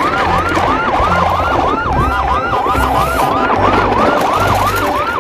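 Electronic yelp siren sounding: a rapid up-and-down wail that repeats about three times a second, over a low pulsing bass.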